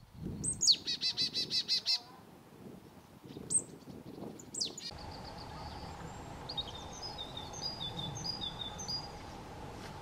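Lesser spotted woodpecker calling a fast run of about eight piping 'kee-kee-kee' notes, a little over a second long. Later, scattered high, thin bird chirps follow.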